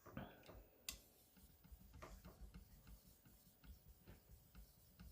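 Very faint, quick, slightly uneven clicking of a carbon-steel knife blade worked in short strokes on a Japanese natural whetstone, roughly four or five clicks a second, after one sharper click just under a second in.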